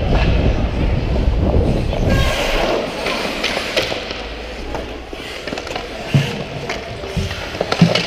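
Ice hockey play heard from a skating referee's camera: a heavy low rumble of wind on the microphone and skating for the first two seconds or so, then skates on the ice with sharp knocks of sticks and puck along the boards, the loudest near the end.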